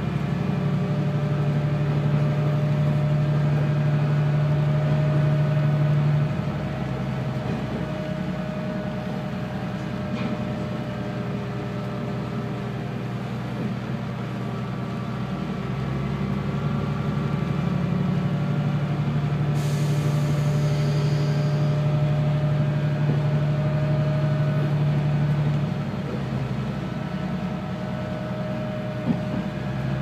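Diesel railcar engine running under the car with rail noise, heard from the front of a single-car KiHa 120. The engine pulls with a steady low drone, eases off about six seconds in, pulls again from about sixteen seconds and eases off once more near the end. A short hiss comes about twenty seconds in.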